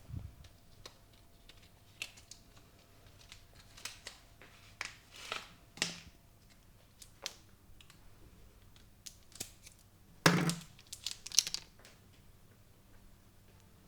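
A barber's hands working a client's head and hair during a massage, making irregular short crackles and snaps, the loudest a burst of crackling about ten seconds in.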